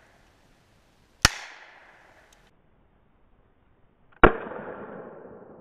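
Two pistol shots about three seconds apart, each followed by a long echo that fades away through the woods.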